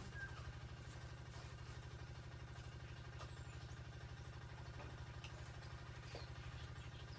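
A small engine running steadily with an even, low pulsing note, joined by a few faint chirps and clicks.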